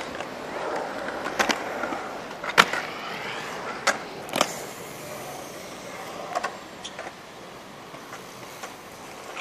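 Skate wheels rolling over concrete, with a series of sharp clacks and knocks, the loudest about two and a half seconds in.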